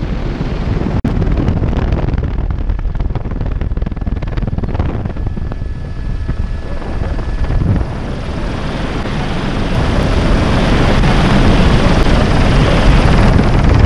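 Helicopter rotor and engine noise with wind buffeting the microphone at the open cabin door; the rush of wind grows louder over the last few seconds.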